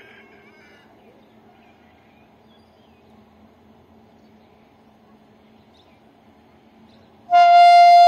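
A few faint bird chirps over a quiet background, then about seven seconds in a WAP7 electric locomotive's air horn starts up, one loud, steady, high note.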